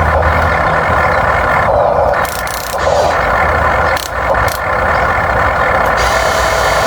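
Electric motors and plastic gearboxes of a toy remote-controlled construction machine whirring steadily, with a few short clicks partway through.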